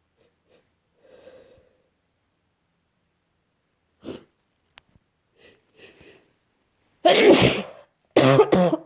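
A person with a heavy cold sneezing loudly twice in quick succession near the end, after a few faint catching breaths and a sharp intake.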